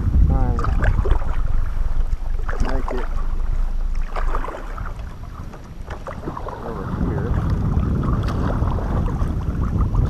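Wind buffeting the microphone in a low rumble that eases a little in the middle, with the splashes of a double-bladed kayak paddle dipping into the water.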